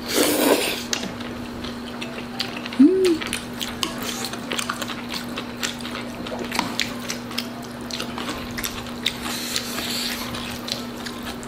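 Close-miked eating of jjajangmyeon and tangsuyuk: chewing, with many small clicks of chopsticks and cutlery against dishes. A short hummed 'mm' comes about three seconds in.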